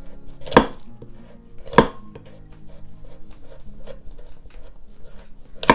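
Chef's knife chopping through the hard rind of a kabocha squash on a wooden cutting board: three sharp knocks, about half a second in, just under two seconds in and at the end, with faint small ticks of cutting between them.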